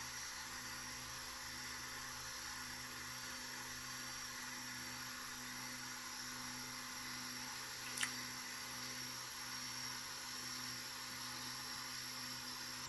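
Easy CoreXY M350 3D printer running a single-layer test print: a steady fan whir and hiss with a low hum from the stepper motors as the print head moves. A single sharp click about eight seconds in.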